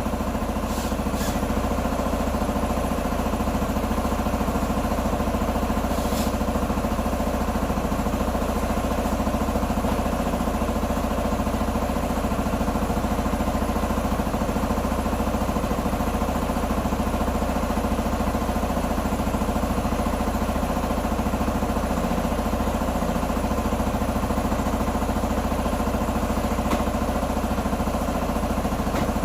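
Q2 125 motorcycle engine idling steadily after its repair, with a faint click about six seconds in.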